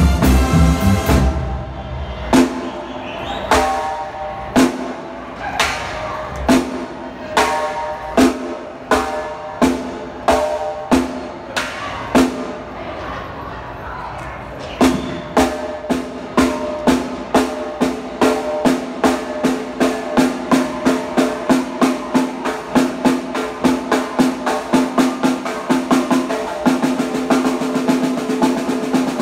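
Live band in banda sinaloense style, with drum kit, electric bass and keyboard, playing a song's ending. After a full chord for about the first second come spaced accented hits. From about halfway the drum strikes speed up steadily into a drum roll, with a held note under the last few seconds.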